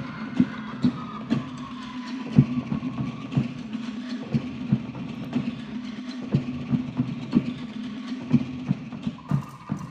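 Live Tahitian drum ensemble of pahu and other skin drums playing a fast, driving dance rhythm, with a louder stroke about twice a second over rapid beats.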